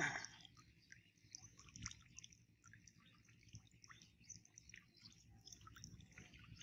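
Faint dripping and sloshing of water as a cast net is hauled in by hand through shallow floodwater, with scattered faint bird chirps. A brief louder sound comes at the very start.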